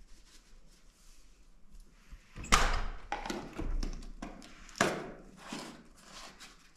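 A yellow plastic bottle handled in the hands: scratchy rustling, with two sharp, loud knocks about two and a half and five seconds in.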